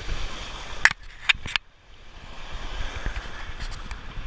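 Rumbling, buffeting noise on the camera microphone, broken about a second in by three sharp clicks and a brief drop in level before the rumble returns.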